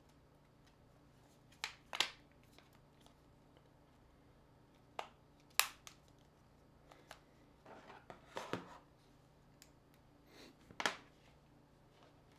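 Sharp clicks and snaps of an ASUS ZenFone 3's parts, a few seconds apart, as the phone is handled and prised apart by hand. A short run of scraping and clicking comes a little past the middle.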